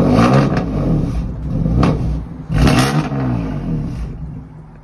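Car engine revved twice from idle, each rev rising and dropping back, with a short sharp click between the two revs.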